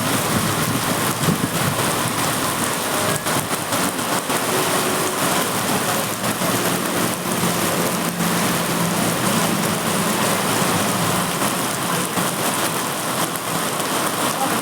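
Heavy rain falling: a steady hiss of rain with many small drop impacts throughout.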